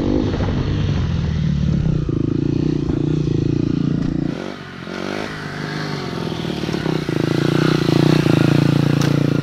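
Dirt bike engine running hard under throttle, holding a steady pitch through the first four seconds. It dips briefly, then builds again and grows louder near the end as the bike is ridden on its back wheel.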